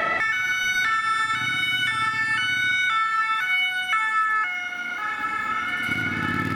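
French two-tone ('deux tons') emergency-vehicle siren, alternating between a high and a low note about every half second, then weakening about four and a half seconds in as a lower drone comes in near the end.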